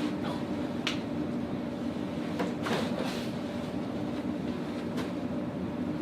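Chiropractic leg-pull adjustment on a patient lying face down, heard over a steady room hum: a sharp click about a second in, a rustling stretch around the middle, and another short click near the end.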